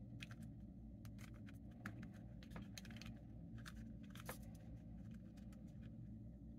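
Rubik's cube faces being turned by hand: a string of faint, irregular plastic clicks and rattles over a low steady hum.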